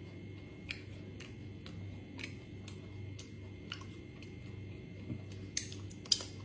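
Soft, regular ticking, about two ticks a second, over a low steady hum. A few louder, sharper clicks come near the end.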